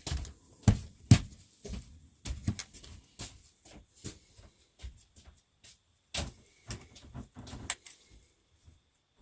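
Irregular knocks, clunks and clicks of a bathroom wall heater and its fittings being handled during installation, loudest about a second in.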